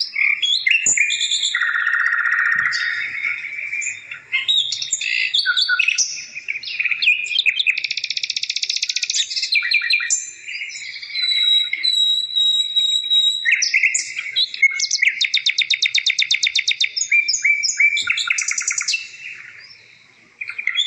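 Small birds chirping and singing: a busy run of short whistled notes and chirps, with two fast trills, one in the middle and a longer one later on.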